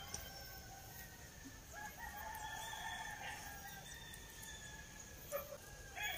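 Faint bird calls from a distance, including one long drawn-out call about two seconds in.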